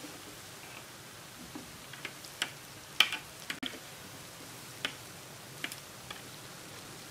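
Metal tongs clicking and tapping as jalebi are turned in a pan of hot frying oil: scattered sharp taps, the loudest about three seconds in, over a steady faint sizzle of deep frying.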